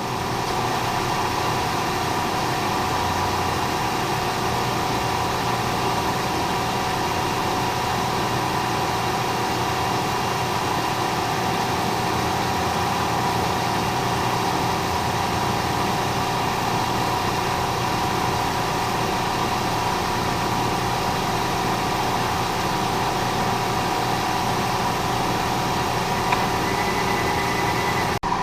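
Milling machine spindle and drive running with a steady hum and several steady whining tones.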